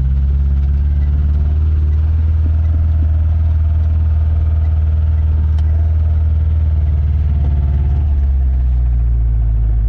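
Vehicle engine running steadily, a loud deep rumble heard close up, its tone shifting slightly about eight seconds in.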